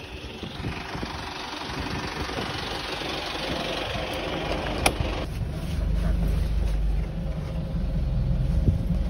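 Outdoor traffic noise, then a sharp click about five seconds in as the minibus door is opened. After that the low, steady rumble of the minibus's idling engine is heard from inside the cabin.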